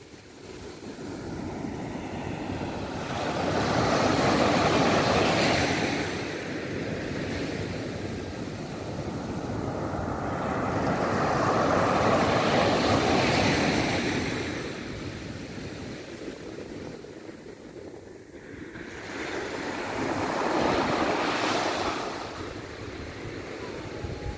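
Small surf breaking and washing up a sandy beach. It swells and fades three times, each wave building and falling away over several seconds.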